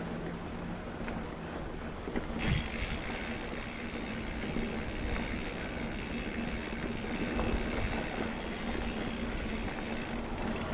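A small electric motor and gears whine steadily with several high tones, setting in about two seconds in, over a low steady hum and rumble.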